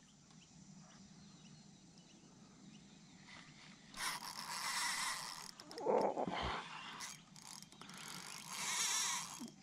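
Fishing reel being worked during a lure retrieve and hookup, its mechanism clicking and whirring in bursts about four seconds in and again near the end, with a brief louder noise in between.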